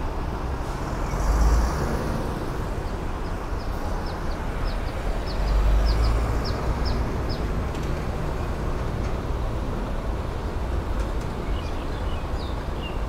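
Steady outdoor traffic rumble, with two louder low swells about one and a half and six seconds in. A run of about ten short high chirps comes a few seconds in.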